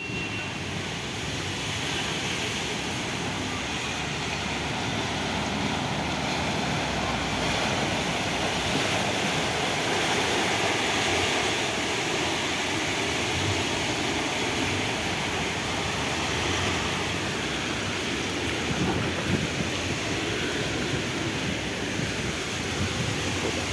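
Steady rushing noise of heavy rain falling on floodwater covering a street and parking lot.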